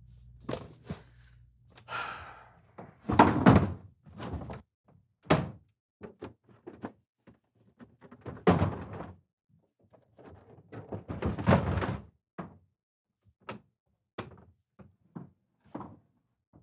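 A string of thunks and knocks as an old CRT television is lifted and dropped into a plastic wheeled trash bin, the loudest about three, eight and eleven seconds in. Smaller knocks near the end come from the bin's lid being handled.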